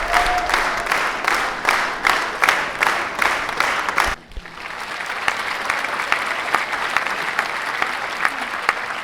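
Crowd applauding at the end of a concert, with sharp individual claps standing out, cut off abruptly about four seconds in. A second, smoother and steadier applause recording follows.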